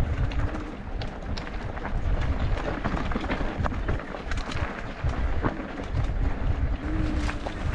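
Mountain bike riding over a rough dirt trail: a constant low rumble of wind and trail buffeting the camera's microphone, with many quick clicks and rattles from the bike and tyres on loose stones.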